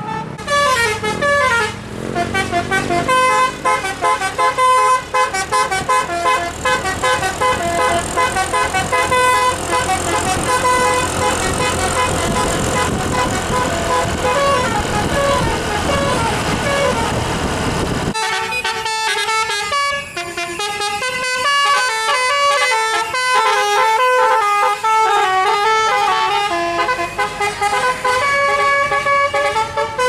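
Bus 'telolet' musical horn, a set of air horns playing a quick stepping melody of several notes, over the rumble of the bus's engine and traffic. About eighteen seconds in, the sound changes abruptly and the horn melody carries on with little engine rumble beneath it.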